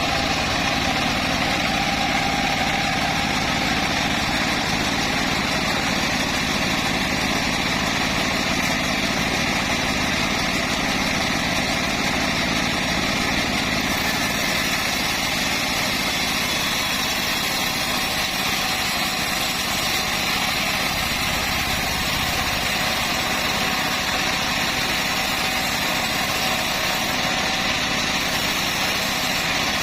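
Homemade bandsaw sawmill running steadily, its engine giving an even, unbroken mechanical drone.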